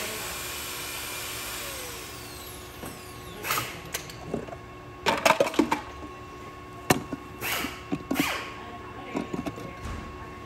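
Metal parts knocking and clinking in irregular clusters as a cycloidal pinwheel reducer is assembled by hand, a gasket laid on and the cast output housing set down over the pins, with a steady hum behind. It opens with a hiss and a falling whine that fade over about two seconds.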